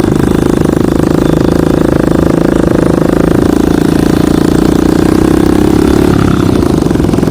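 Motorcycle engine running steadily and loud, close to the microphone; its pitch shifts a little about six seconds in.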